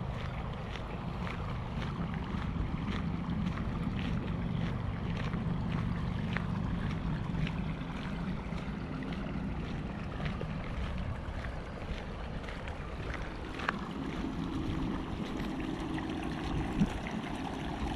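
Outdoor ambience: wind on the microphone over a low, steady rumble with a faint engine hum, and light, regular ticks of footsteps while walking.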